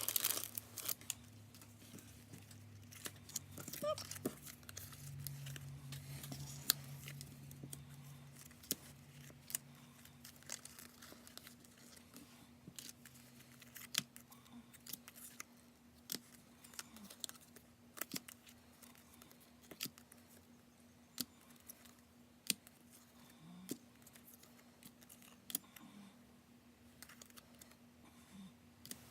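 Faint scattered clicks and rustles of paper die cuts and plastic packaging being handled, over a faint steady hum.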